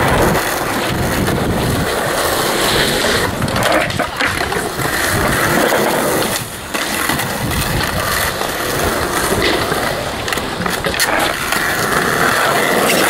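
Skateboard wheels rolling on smooth concrete, a steady grinding rumble, with a few sharp knocks of the board against the ground.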